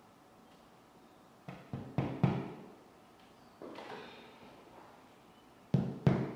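Hammer tapping a fine finishing nail through a carpet tile into a wall: a quick cluster of four taps about a second and a half in, a brief rustle, then a steady run of taps, about three a second, starting near the end.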